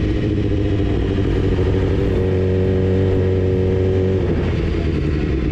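Sport motorcycle engine running at low revs as the bike rolls slowly, heard from on board. The note rises slightly about two seconds in and eases back down about four seconds in.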